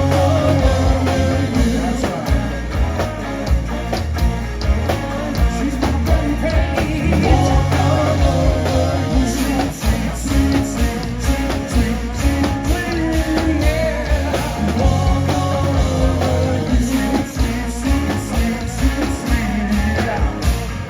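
A live rock band playing a song with a sung vocal over guitars, bass and drum kit, loud and steady with a regular drum beat.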